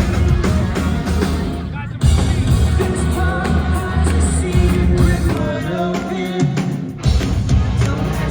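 Rock band playing live, with a singing voice over guitars and drums. The band breaks off just before two seconds in and comes back in loud; around six seconds the bass drops away for about a second before the full band returns.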